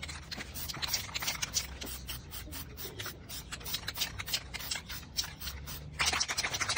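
Aerosol spray-paint can spraying black paint onto an aluminium wheel rim in a rapid string of short hisses for a light, spattered first coat, with a louder, longer spray near the end.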